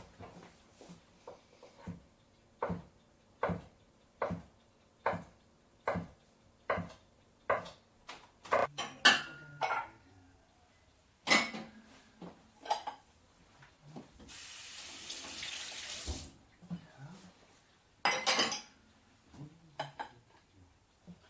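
Kitchen work sounds: a knife chopping on a cutting board in a steady series of about seven strokes, a little more than one a second, then scattered clatters of dishes. Near the middle, a tap runs for about two seconds, followed by a brief clink of dishes.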